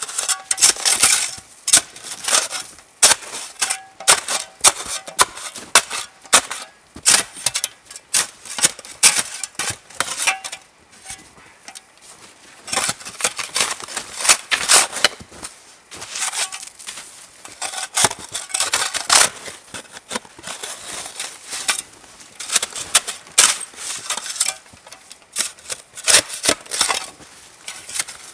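Snow shovel digging and scraping into crusted snow: irregular crunching scrapes and knocks, one after another, with a short lull about ten seconds in.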